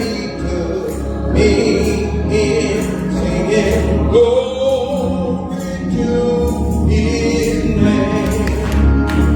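Gospel song performed during a church service: singing voices with a wavering melodic line over instrumental accompaniment, with sustained low bass notes and regular percussive strokes.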